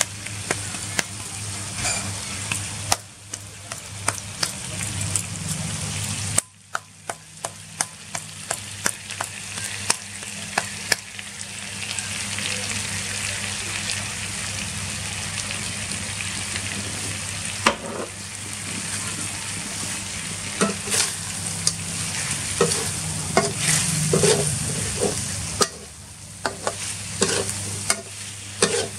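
Freshwater eel pieces sizzling in hot oil in a steel wok, a steady frying hiss. Frequent sharp clicks and scrapes, thickest in the second half, come from a metal spoon stirring them against the pan.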